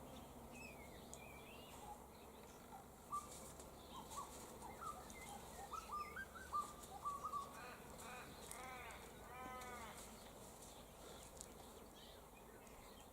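Faint bird calls in tree canopy: a scatter of short chirps, then a quick run of about six repeated arched calls near the middle, over a low steady background hiss.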